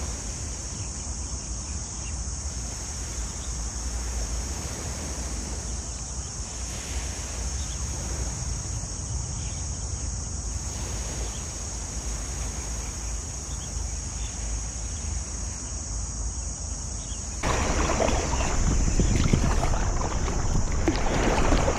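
Wind on the microphone and small waves lapping at a sandy shore, with a steady high hiss. About seventeen seconds in it jumps to louder, irregular water splashing and sloshing around an inflatable stand-up paddleboard on the water.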